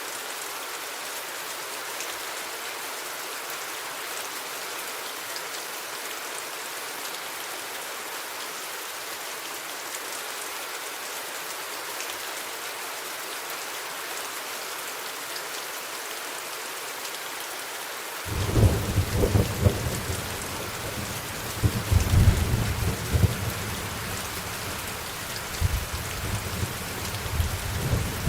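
Steady rain falling. About two-thirds of the way in, thunder breaks in suddenly and rolls on in low, swelling rumbles for the last ten seconds.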